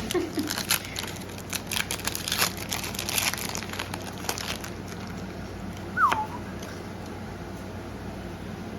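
Foil Pokémon booster pack wrapper being crinkled and torn open: a run of crackles over the first four seconds or so. About six seconds in there is one short squeak that falls in pitch.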